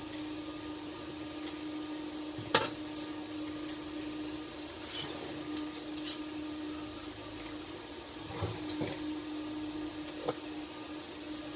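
A steady hum under scattered handling clicks and knocks as welding gloves go on and a TIG welding torch is lifted off a steel workbench, the sharpest knock about two and a half seconds in. No arc is struck.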